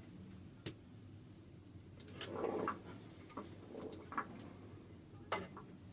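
Faint clicks and a few light knocks of tools and parts being handled, with a short cluster of knocking and rustling a little over two seconds in, over a low steady hum.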